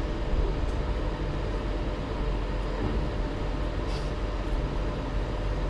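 Steady low rumble of a train carriage in motion, heard from inside the carriage, with a faint click about four seconds in.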